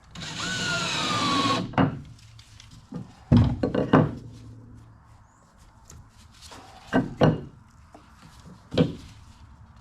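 A power tool runs with a slowly falling whine and stops after about a second and a half. Then wooden deck-beam pieces are knocked into place with a mallet: a quick cluster of knocks, two more a few seconds later, and a last one near the end.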